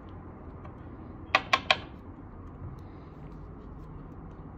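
Three quick sharp clicks about a second and a half in, from small binocular parts being handled as the binoculars are taken apart.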